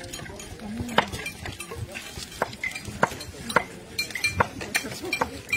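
A spoon stirring in a cooking pot and knocking against it: a series of irregular sharp knocks and clinks, roughly one every half second to second.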